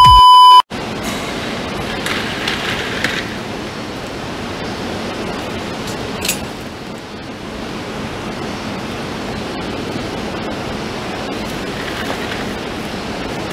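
A loud electronic test-pattern beep, one steady tone, cuts off suddenly within the first second. A steady even hiss of background noise follows, with a faint click about six seconds in.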